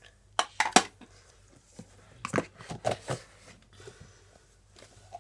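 A handful of sharp knocks and clicks in two clusters: three quick ones about half a second in, then four more between two and three seconds in.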